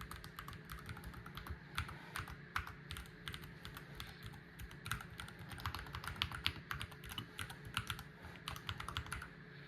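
Typing on an Akko MOD68 HE, an aluminium-cased keyboard with Hall-effect magnetic switches: quick, irregular keystrokes, several a second, sometimes in fast runs, as a sound test of the new keyboard.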